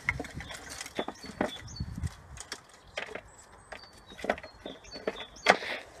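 Sticks and twigs being handled and piled onto a log-and-brick hedgehog house: irregular wooden clicks, knocks and rustles, with the loudest knock near the end.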